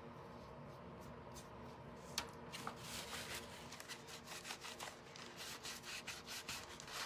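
Paper towel rubbing over a thin wooden star frame in quick, repeated strokes, wiping brown paint back off so the wood looks stained. One sharp click comes about two seconds in, before the rubbing starts.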